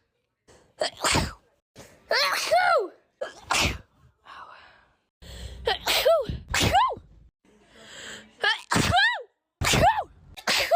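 A person sneezing, a series of about eight sneezes with short gaps between them. Several end in a voiced cry that falls in pitch.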